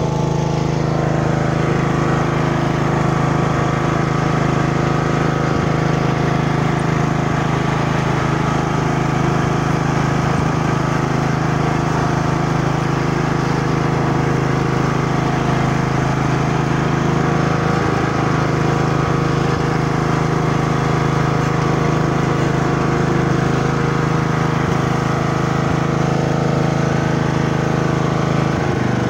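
Craftsman T1200 riding lawn mower's engine running steadily at mowing speed, blades cutting grass, on a test mow after its carburetor was sorted. Near the end the throttle is pulled back and the engine note drops.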